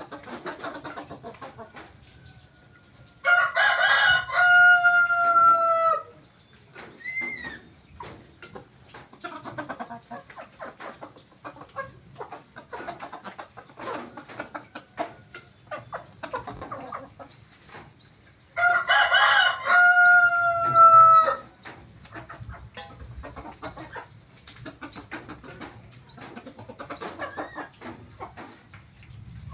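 Rooster crowing twice, about fifteen seconds apart, each crow close to three seconds long and ending in a long held note. Between the crows, hens cluck softly and beaks tap at scattered feed.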